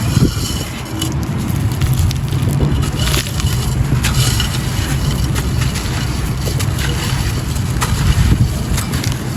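Light grey gritty concrete being crushed and crumbled, giving continuous gritty crunching with many small sharp crackles over a steady low rumble.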